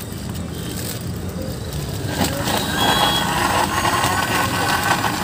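Electric mixer-grinder blending a milkshake in its jar, the motor running steadily and growing louder about two seconds in.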